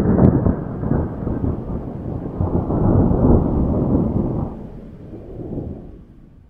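A long, rolling rumble of thunder: loud at first, swelling again about three seconds in, then fading away over the last couple of seconds.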